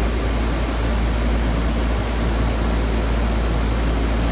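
Lennox central air conditioner condensing units running: a steady fan whoosh over a low hum.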